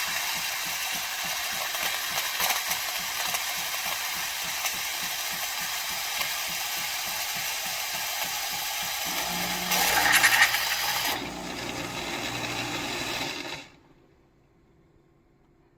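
Philips 4300 Series LatteGo espresso machine steaming and frothing milk for a cappuccino: a steady loud hiss with a fast pulsing of the pump underneath. A low hum joins about nine seconds in, with a louder surge around ten seconds in. It all stops suddenly about thirteen and a half seconds in.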